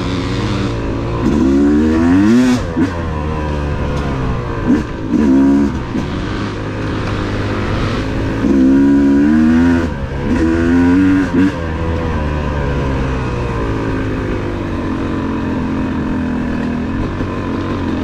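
Yamaha YZ250 two-stroke dirt bike engine running on the trail, the throttle opened in several short bursts with the pitch climbing, between stretches of steadier running.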